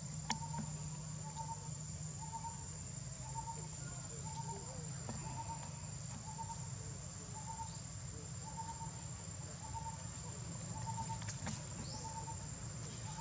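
Outdoor woodland ambience: a steady high-pitched insect drone, with a short call repeated evenly about one and a half times a second. Near the end come a couple of brief high chirps.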